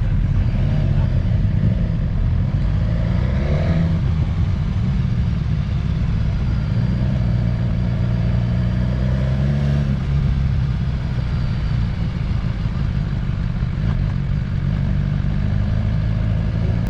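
Motorcycle engine running while under way, its pitch shifting a couple of times as the revs change.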